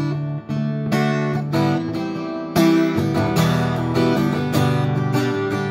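Acoustic guitar strummed in a steady rhythm, chords ringing between the strokes, in an instrumental passage of the song.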